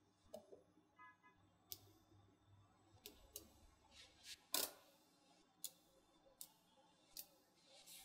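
Small magnetic balls clicking together as they are snapped into place by hand: faint, scattered sharp clicks, a dozen or so at an uneven pace, the loudest a little past the middle.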